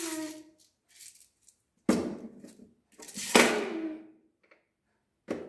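Plastic toy cups and dishes clattering in a kitchen drawer as a toddler rummages through them, with two louder clatters about two and three and a half seconds in.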